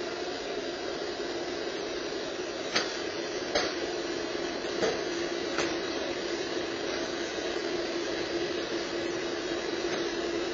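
Garbage truck running at the curb, a steady hum under a noisy background, picked up by a security camera's microphone. A few short sharp knocks in the first half.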